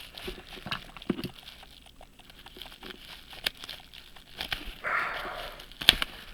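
Handling noise of a package being opened with scissors: scattered clicks and light rustling of the wrapping, a short crinkle about five seconds in and a sharp click just before the end.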